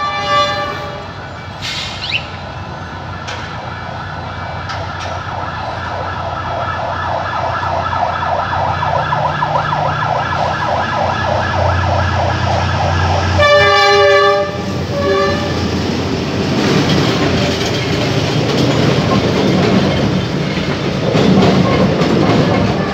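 D19E diesel-electric locomotive approaching a level crossing, its engine rumble growing louder under a pulsing warning tone. About 14 seconds in it gives two horn blasts, the first longer. Then the passenger coaches roll past with clattering wheels.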